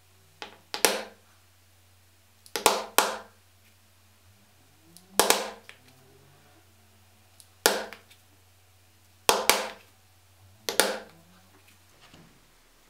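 A mallet striking a 1 mm round hole punch through a paper pattern into 1.6–1.8 mm leather, punching stitching holes. Sharp knocks come mostly in pairs of quick blows, one hole about every two seconds, six in all.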